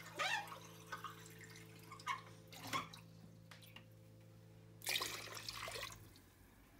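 Water in a cooking pot bubbling and splashing in short, irregular blips, with a longer splash about five seconds in.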